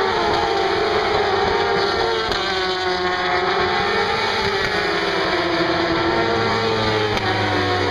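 A pack of racing motorcycles passing at high revs, their engine notes rising and falling as they change gear and go by.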